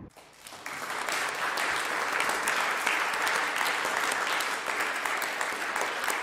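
Applause: many hands clapping. It starts suddenly, swells within the first second, then keeps on at a steady level.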